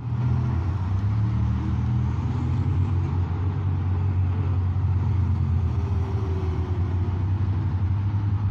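Eight-wheeled armoured army vehicles driving along a street, their engines running with a steady low rumble.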